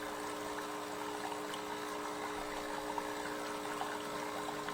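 Breville Barista Express BES870XL espresso machine's pump humming steadily while water runs through it into the cup in free-flow mode. The owner believes the leaking machine is struggling to build pressure.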